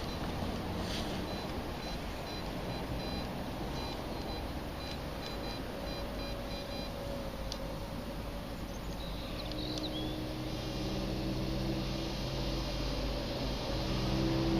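Garrett AT Pro metal detector sounding short repeated beeps on a target, over steady wind noise on the microphone. A low, steady drone builds in the last few seconds.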